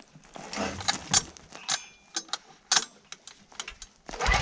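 Irregular sharp clicks and knocks of hands working a diesel generator set, then near the end its diesel engine starts and begins running.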